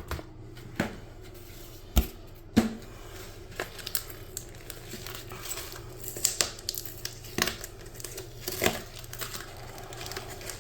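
Crinkling and rustling of mail packaging being opened and handled as a magazine is worked out of it, with scattered small clicks and two sharp knocks about two seconds in, half a second apart.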